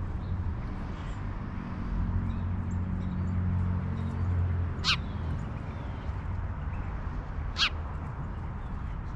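Two short, sharp, downslurred bird calls about three seconds apart, over a steady low rumble.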